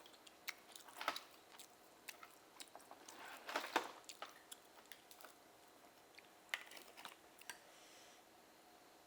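Close-up mouth sounds of someone eating steamed oysters: wet chewing and lip smacks in scattered clicks, with a louder, longer wet burst about three and a half seconds in.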